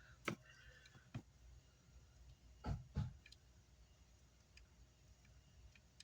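Light clicks and taps of small parts and tools being handled at a repair bench. A sharp click sounds near the start and another about a second in, then two louder knocks close together about halfway through, followed by a few faint ticks.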